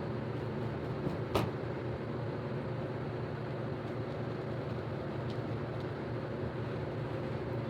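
Steady low background hum with a single sharp click about a second and a half in.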